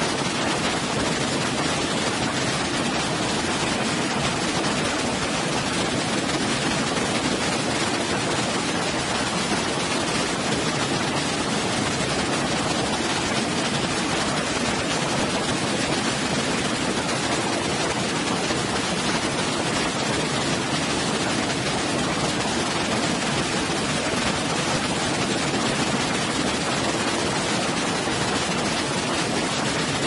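Waterfall: a steady, even rush of falling water that holds the same level throughout.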